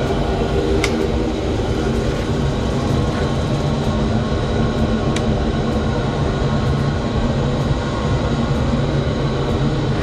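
Steady machine drone from the wood-gas engine rig, level throughout with no start-up or change, with a few faint ticks over it.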